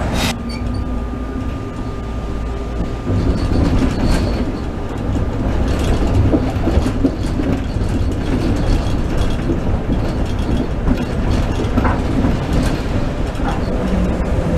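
Toronto TTC streetcar heard from inside while running along its street track: a steady low rumble of motors and wheels on the rails, with scattered knocks and clanks. It gets louder about three seconds in as the car picks up speed, and a sharp click comes right at the start.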